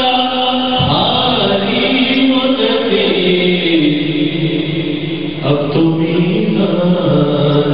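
A man's voice chanting an Urdu naat through a microphone, in long held notes that slide from one pitch to the next.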